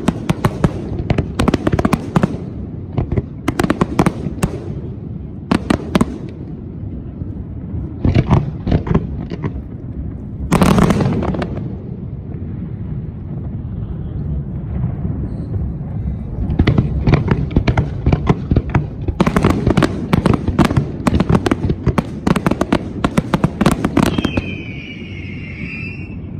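Aerial fireworks display: volleys of shell bursts and crackling pops, with a single bigger burst about 11 seconds in and a dense crackling barrage in the last third. A short high whistle-like tone sounds near the end.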